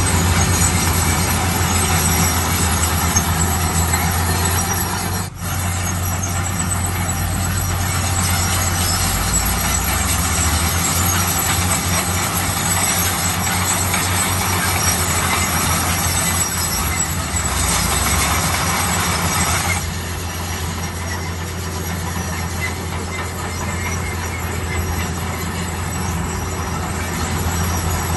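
Bulldozer working: its diesel engine drones steadily under the rattle and grind of the machine, with a brief break in the sound about five seconds in.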